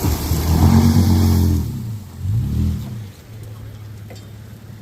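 Toyota Tacoma pickup's engine pulling hard, then revving up and back down briefly about two seconds in before settling to a steadier, quieter run.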